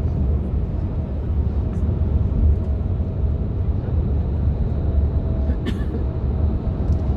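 Steady low rumble inside a coach bus cabin at motorway speed: engine and tyre noise, with one short click about five and a half seconds in.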